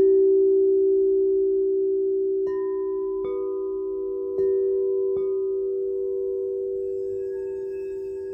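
Singing bowls ringing: a deep bowl's long, slightly pulsing tone fades slowly, while smaller bowls are struck lightly four times, about two and a half, three, four and a half and five seconds in, each adding a higher ringing tone.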